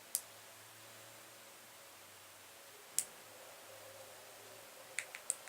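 Sharp, short plastic clicks from a light-up fidget spinner being switched off and handled: one click at the start, one about three seconds in, and a quick run of three or four near the end.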